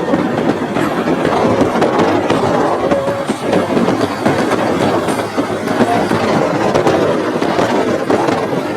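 Steady, loud rattling and rumbling of a moving vehicle, heard from inside it.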